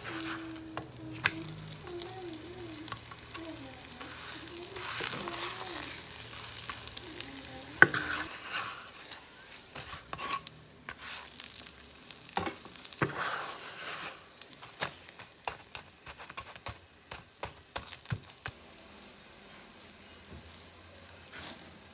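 Scallion pancake sizzling as it fries in oil in a nonstick pan. A wooden spatula scrapes and knocks against the pan as the pancake is turned, with one sharp knock about eight seconds in and scattered clicks after it.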